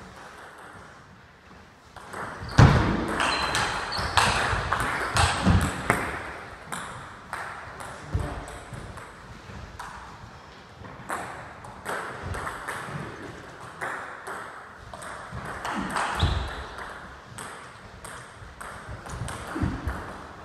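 Table tennis ball clicking off bats and table in rallies: quick, light ticks in irregular runs that start about two seconds in, with a few heavier thuds among them.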